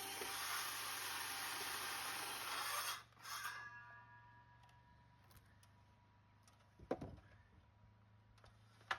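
Power drill running steadily, cutting off about three seconds in, then two sharp knocks on wood.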